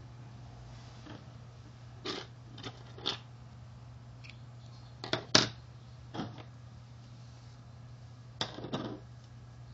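A few short clicks and scrapes from embroidery scissors snipping crochet yarn and being set down on the table, the loudest a little past halfway, over a low steady hum. The cut is the yarn being fastened off, leaving a tail for sewing.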